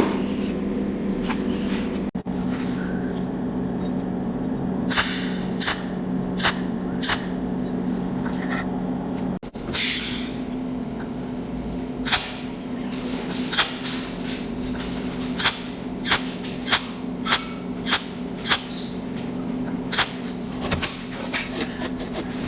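Cold welding machine firing its short arc pulses, each one a brief sharp zap, sparse at first and then coming in a steady run about one to two a second as spot welds are laid down overlapping one another. A steady low hum runs underneath.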